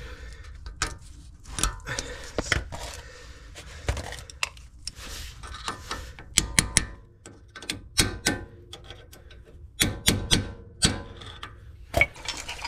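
Steel circlip and circlip pliers clicking and clinking against a wheel hub as the retaining ring is worked into its groove in the bearing bore: a run of irregular sharp metallic clicks, some with a short ring.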